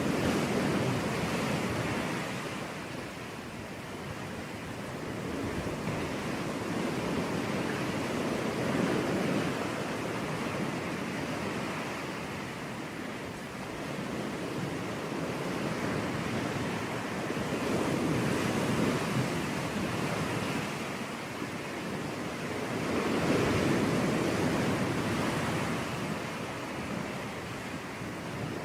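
Sea waves breaking and washing on a beach, a steady rush that swells and eases as each wave comes in, every several seconds.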